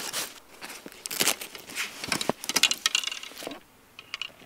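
Handling noise from fishing gear: fabric rustling and small clicks and knocks as carp rods are pulled from a padded rod holdall and handled. The rustling is irregular and dies down near the end.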